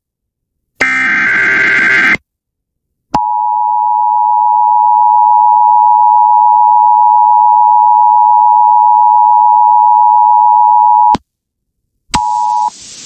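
Emergency Alert System broadcast tones: a harsh buzzing SAME digital header burst of about a second and a half, then the EAS two-tone attention signal, a steady dual tone just under 1 kHz held for about eight seconds that cuts off abruptly. A brief blip of the same tone and a rush of hiss follow near the end.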